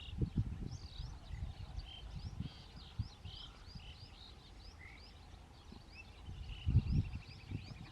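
Asian pied starlings and house sparrows calling together: many short rising chirps throughout, with a rattling trill near the end. Low rumbling bursts, loudest about half a second in and again near the end, run underneath.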